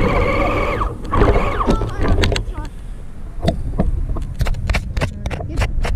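Electric RC truck motor whining steadily for about a second, then several short pitch changes. From about three seconds in comes a quick series of sharp clicks and knocks as the camera is handled.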